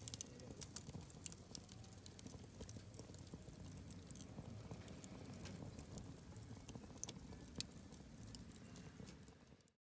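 Wood campfire crackling: irregular sharp pops and snaps over a low, steady rumble, fading out near the end.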